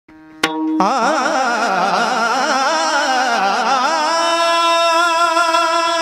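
A man singing an ornamented devotional phrase with a wavering pitch, settling on a long held note about four seconds in. There is a short click just before the singing starts.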